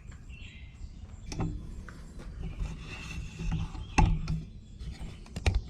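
A few sharp knocks and clicks over a low rumble, the loudest about four seconds in and two more close together near the end.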